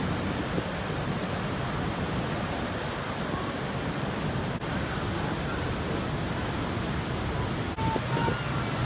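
Niagara Falls' huge volume of falling water making a steady, even rush.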